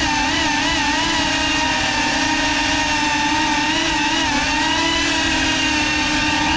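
FPV quadcopter's electric motors and propellers whining steadily in flight, the pitch wavering slightly a few times as the throttle changes.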